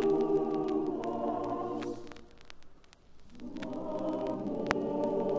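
Background choral music: held voices that fade away about two seconds in and swell back in about a second later.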